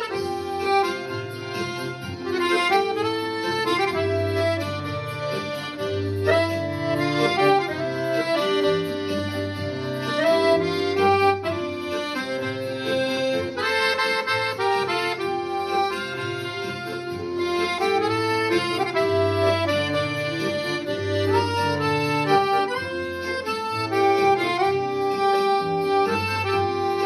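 Accordion playing a tune with a melody over a repeating bass accompaniment, as music for group exercises.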